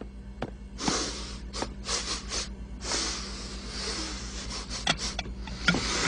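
Cartoon sound effects for an animated pig: a run of short hissing noise bursts, some brief and some lasting about a second, as the pig runs and leaps. A couple of faint light ticks come first.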